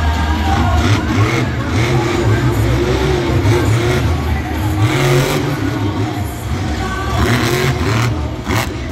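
Monster truck's supercharged V8 running and revving, its pitch rising and falling, with a voice over it.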